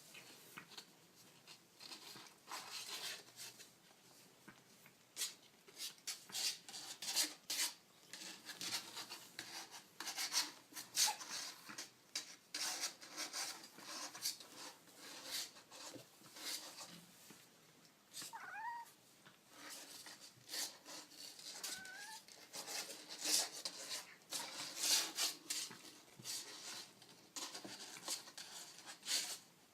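Kittens making small noises: many short scratchy, rustling sounds throughout, with two brief high mews that glide up and down, one a bit past the middle and another a few seconds later.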